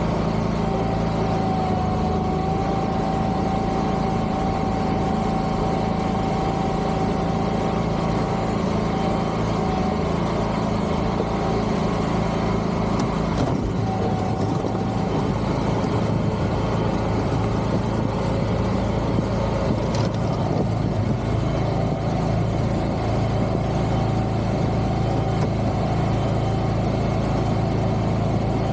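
Wilcraft amphibious vehicle's engine running steadily as it moves between open water and ice, with a steady high whine over it that drops out around the middle and comes back near the end.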